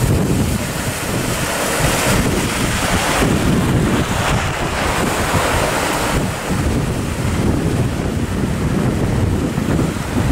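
Strong wind buffeting the microphone over the rush of a rough sea, with waves breaking and surging.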